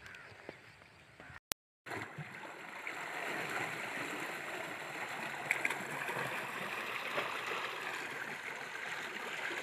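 Irrigation water flowing and gurgling through a gap in the earthen bank of a field channel, steady from just after an abrupt cut about two seconds in.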